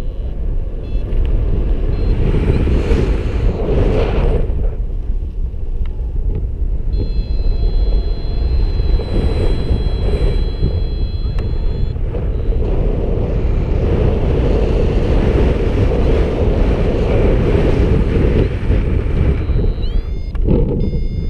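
Airflow buffeting the microphone of a paraglider-mounted camera in flight: a steady low rushing rumble. A thin high electronic tone sounds for several seconds in the middle, with short rising chirps near the end.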